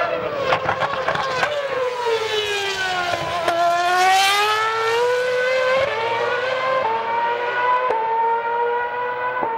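Caterham CT01 Formula One car's 2.4-litre Renault V8 braking for a corner with quick downshifts, its high-pitched note falling. About three and a half seconds in it accelerates away, the note climbing again and broken by upshifts roughly once a second.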